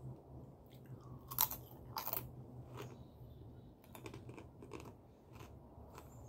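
Close-up chewing of a crunchy Power Crunch wafer protein bar: irregular crunches, the two loudest in the first couple of seconds, then softer ones as the chewing goes on.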